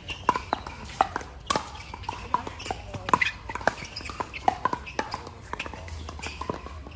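Pickleball paddles striking plastic pickleballs: many sharp pops at irregular intervals, overlapping from the rally and from games on the surrounding courts.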